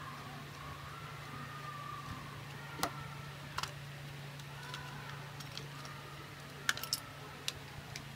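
A few sharp little clicks and taps at irregular intervals, from small parts of a computer mouse being handled during its repair, with several clicks bunched together near the end, over a steady low hum.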